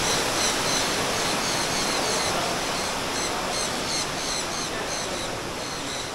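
Steady rush of falling water, with birds chirping over it in a run of short, high chirps about twice a second.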